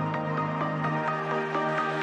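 Background electronic music with a steady beat and sustained synth notes.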